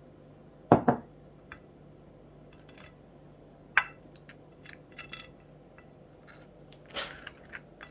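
A table knife clinking against a ceramic plate and scraping over toast as jam is spread, with two sharp knocks about a second in and lighter clicks and scrapes after.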